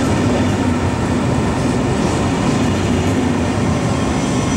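Italo's Alstom AGV high-speed electric train moving past along the platform: a steady rumble of wheels on rail and running gear with a low hum.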